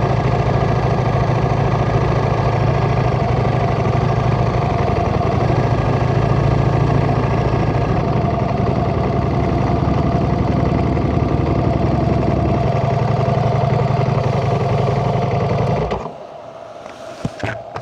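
Motorcycle engine idling steadily, then switched off about sixteen seconds in, leaving a couple of small clicks.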